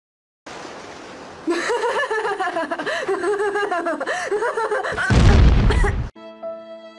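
A voice rising and falling in pitch, then a loud cartoon explosion sound effect about five seconds in, lasting about a second. It cuts off abruptly into violin music.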